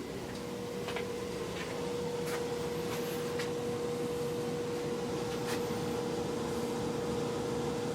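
Venmar EA-1500 air exchanger running with a steady hum, a single tone a little under 500 Hz over a low rumble, with a few faint ticks. The owner finds this hum from the brand-new unit abnormal and annoying.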